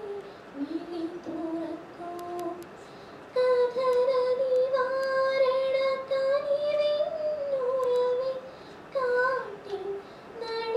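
A woman singing a slow prayer song, a single melody line with long held notes that step up and down in pitch.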